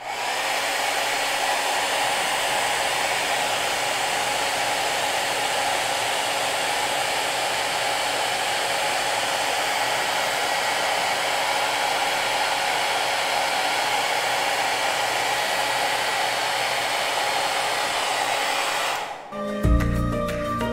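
Handheld hair dryer blowing steadily: an even rush of air with a faint steady fan whine, starting abruptly. It stops near the end as music comes in.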